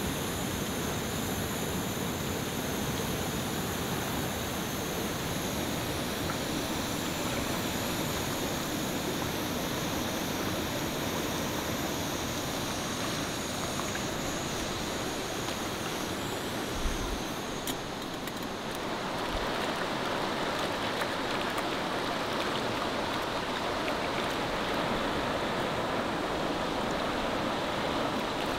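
A rocky river rushing over stones with a steady, even sound; a little past halfway it briefly dips and then carries on a little fuller.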